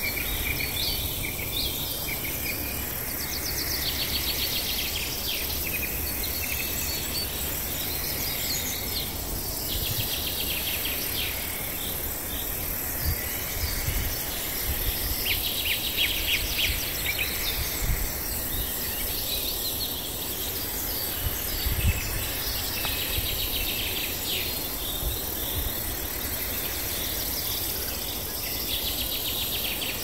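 Wetland ambience: short, rapid trills repeating every few seconds over a steady high drone of insects, with a low rumble underneath and one dull low bump about two-thirds of the way in.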